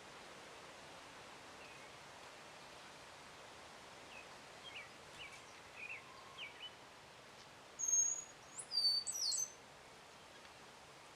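Small songbirds chirping over a steady background hiss: a few faint short chirps in the middle, then a louder run of quick high-pitched chirps about eight seconds in.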